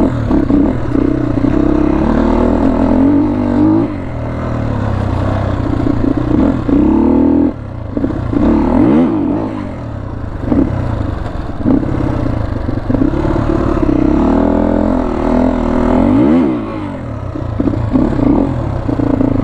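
HJ250 motorcycle's engine running under way, its pitch rising and falling with throttle and gear changes. It eases off briefly about eight seconds in and again around sixteen seconds before pulling again.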